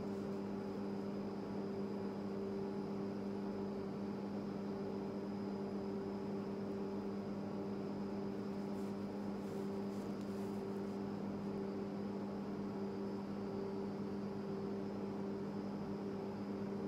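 Steady electrical hum with two strong, unchanging low tones over a faint hiss.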